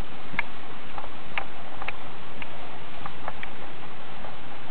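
Steady hiss of recording noise with light clicks about every half second, like a handheld camera being moved about.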